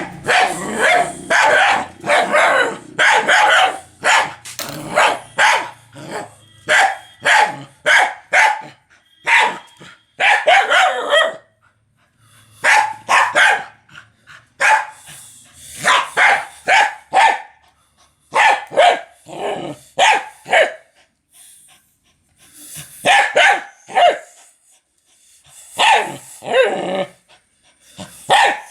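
A dog barking loudly and repeatedly in quick runs of sharp barks, with short pauses between the runs.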